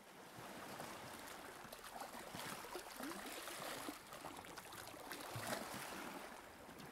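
Faint sound of gentle sea waves lapping: a soft, steady wash and trickle of water.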